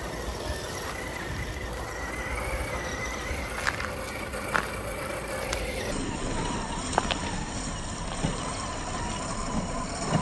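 Scale RC crawler truck's electric motor and gearbox whining steadily, with a few sharp clicks as it drives over rough ground. The whine sits lower after about six seconds.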